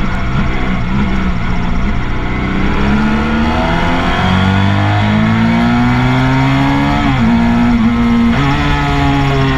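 Motorcycle engine under hard acceleration, heard from the bike itself on a racetrack lap: its pitch climbs steadily through the middle seconds, broken briefly about seven and eight and a half seconds in, over a steady rush of wind and road noise.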